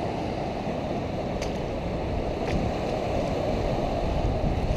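Steady rush of ocean surf washing up the beach, mixed with wind rumble on the microphone.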